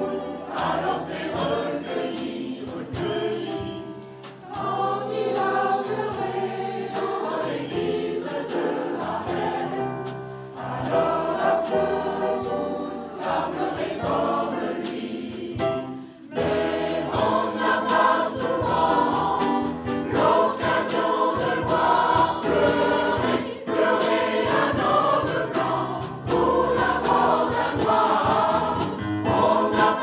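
Mixed choir of men and women singing a French song together. The sound dips briefly about halfway through and comes back louder.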